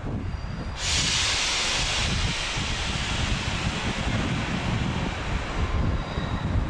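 Train in a station with a loud hiss of released air starting suddenly about a second in and fading after about five seconds, over a low rumble of wind on the microphone.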